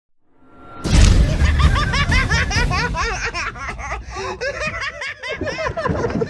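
People laughing hard, starting suddenly about a second in: high-pitched giggling at several pitches over a low rumble, with a deeper laugh joining near the end.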